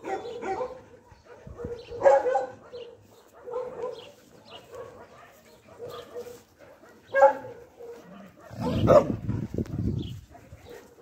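Dogs barking in short, repeated bursts, loudest about two seconds in, about seven seconds in, and again near nine seconds, where a low rumble comes in under them for about a second.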